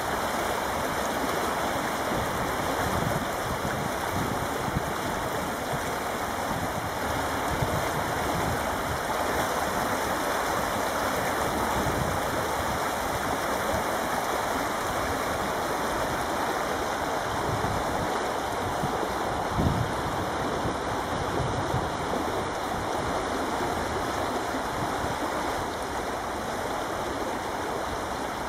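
River water rushing and churning around wooden posts, a steady rushing noise.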